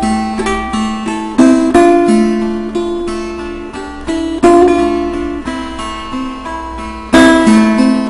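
Kopuz, a Turkic plucked lute, played in an improvisation: plucked notes and strummed chords that ring and fade. Strong strikes come about a second and a half in, around the middle, and about seven seconds in.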